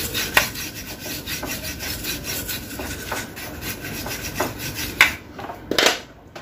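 A brush scrubbing dust off an electronic circuit board in quick back-and-forth strokes. Near the end there are a few separate, louder strokes.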